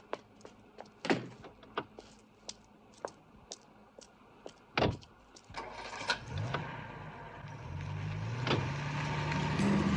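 Footsteps on a pavement, then a car door shutting with a thump just before five seconds in. A car engine then starts and revs up, growing louder.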